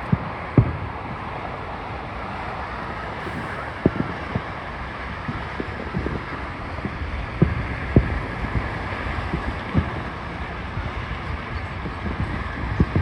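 Fireworks shells bursting, a series of sharp, deep booms at irregular intervals over a steady rushing background of wind on the microphone.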